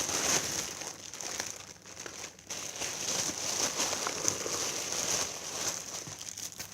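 Packaging being handled: a continuous run of crinkling and rustling made of many small crackles.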